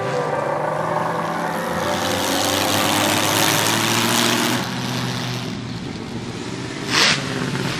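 Auto Union Type C replica's supercharged V16 engine driving past under power, its note rising slightly as it pulls and then falling away once it has passed. A brief sharp burst of noise comes near the end, the loudest moment.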